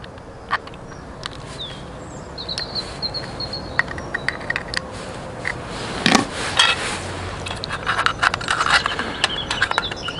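Pliers scraping and clicking against the thin metal rim of an opened Spam tin as the rim is twisted and crimped, in an irregular run of scrapes and ticks that is busiest about six seconds in.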